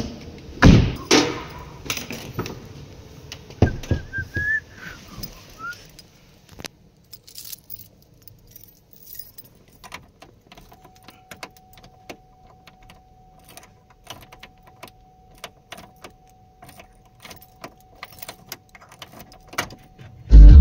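Irregular metallic clicks and jingles, with several loud knocks in the first few seconds. A faint steady tone sits under the clicks in the second half.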